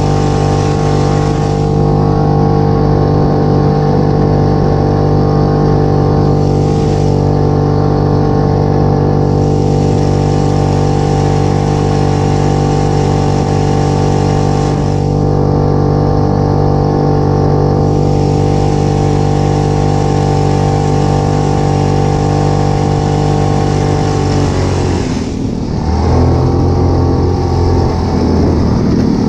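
ATV engine running at steady high revs under load. About 25 seconds in, the engine note drops sharply and then holds steady at a lower pitch.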